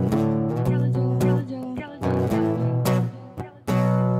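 Acoustic guitar strumming chords that ring on, with two short drops in loudness between phrases.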